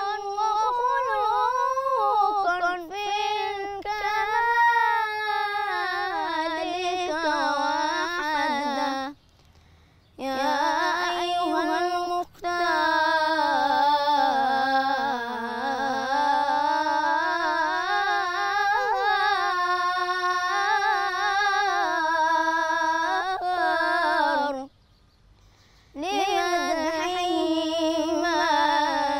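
A ten-year-old boy's solo voice singing Islamic devotional chant (inshad) unaccompanied, in long wavering, ornamented phrases. He breaks off for a breath twice, about nine and about twenty-five seconds in.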